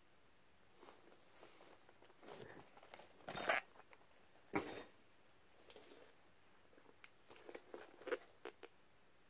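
Rubber gas masks being handled and moved on a cloth-covered surface: soft rustling and small knocks, with two louder knocks around the middle and a run of quick light clicks near the end.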